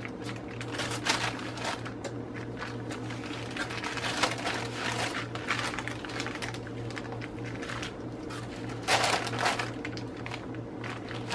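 Thin plastic sheet crinkling and rustling in irregular short crackles as soft cookie dough scraps are peeled away from it, loudest a little before the end.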